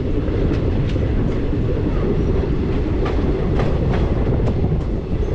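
A moving passenger train's coach running over the track, heard from the coach's open door or window: a loud, steady rumble with the wheels clicking irregularly over rail joints.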